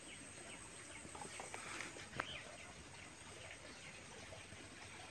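Faint outdoor ambience with scattered short, high bird chirps, and a couple of light clicks about two seconds in.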